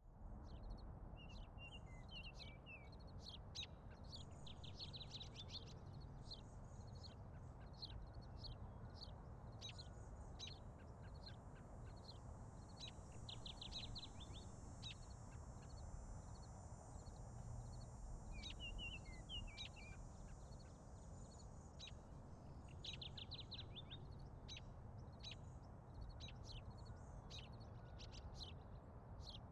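Outdoor ambience of small birds chirping and calling throughout, with a few quick trills, over a steady low background rumble.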